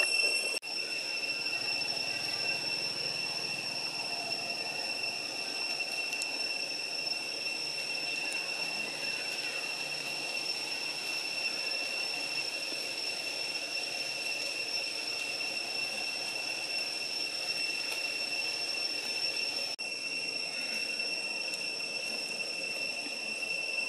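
A steady, high-pitched insect drone from the trees, holding one pitch without a break in rhythm, dropping out briefly about half a second in and again near 20 seconds.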